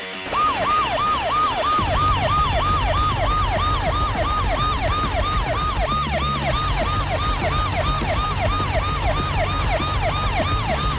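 Emergency-vehicle siren sounding in quick falling sweeps, about three a second, with a low steady rumble coming in about two seconds in.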